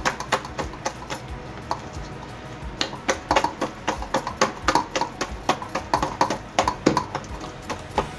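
Hand beating thick urad and moong dal batter against a steel bowl: rhythmic wet slaps, several a second, with a short lull about two seconds in. The batter is being whipped to aerate it so the bhallas puff up.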